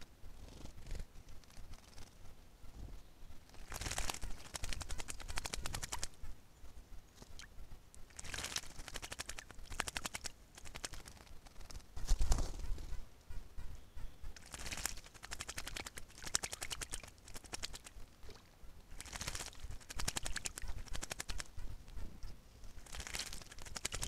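Small songbird bathing in a shallow puddle: bouts of rapid wing-fluttering splashes, each about a second long, come again and again. A single low thump about halfway through is the loudest sound.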